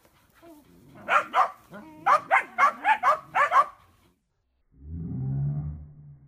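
Blue Lacy puppies barking, a run of about nine sharp barks in quick succession. Then, near the end, a low steady drone lasts about a second and a half.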